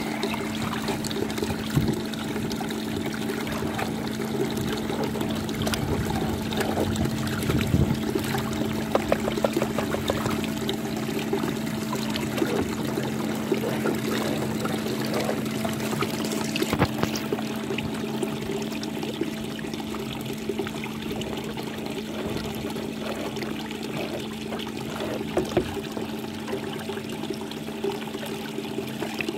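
Water sloshing and pouring off a plastic gold pan as it is swirled and dipped in a tub of water while concentrates are panned down, with small clicks of gravel in the pan. A steady low hum runs underneath.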